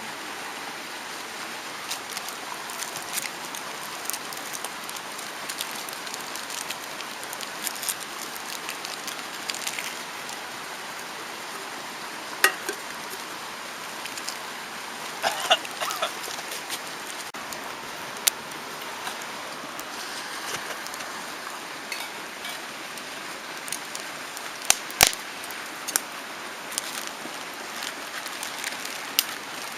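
Mountain stream rushing steadily, with irregular sharp crackles and pops from a wood campfire; a few louder pops come about halfway through and again near the end.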